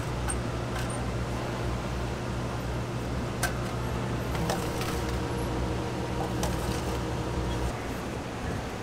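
Commercial conveyor bun toaster running with a steady low electrical hum, with a few light clicks of buns and metal being handled. The hum cuts off near the end.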